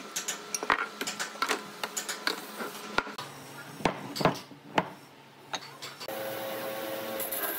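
Wood chisel working a mortise in a hardwood beam: a string of irregular sharp knocks and cracking chips. About six seconds in, a bandsaw's steady running hum takes over.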